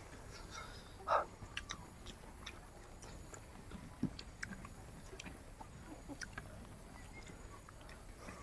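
Close-up mouth sounds of people eating rice and curry by hand: wet chewing and lip smacks, with many small scattered clicks and one louder short sound about a second in.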